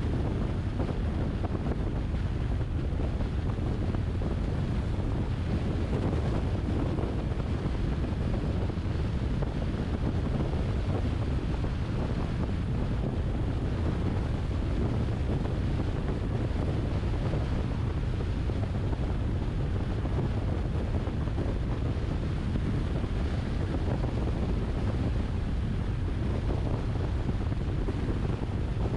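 Steady wind and road noise from a car driving along at speed, dominated by a low rumble of wind on the microphone.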